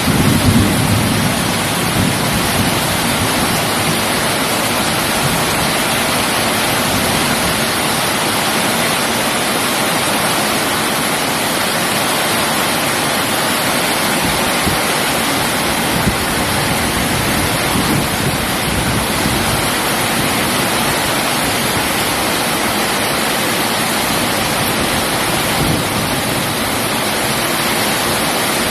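Heavy rain falling in a steady, even hiss, with the tail of a low thunder rumble in the first second.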